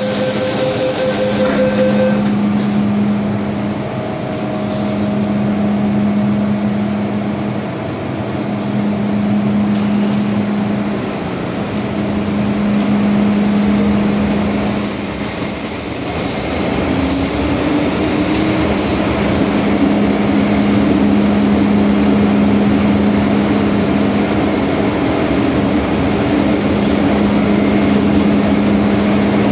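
MTR M-Train electric multiple unit running through a tunnel, with steady wheel and running noise and a low hum that comes and goes every few seconds. About halfway through, the wheels squeal for around two seconds.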